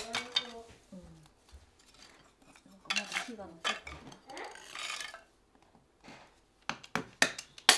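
Hatchet blade striking and splitting thin kindling sticks: a series of sharp wooden knocks and clacks, with a quick run of strikes near the end.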